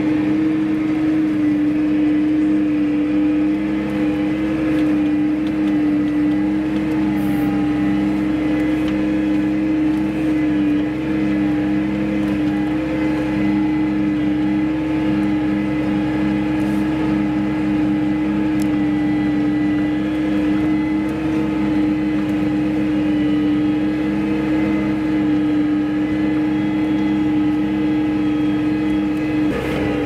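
Case IH Maxxum 140 tractor engine running steadily under load, pulling a drag harrow, heard from inside the cab as a constant drone with a strong steady hum.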